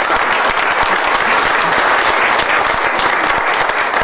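A small audience applauding: steady, dense hand-clapping.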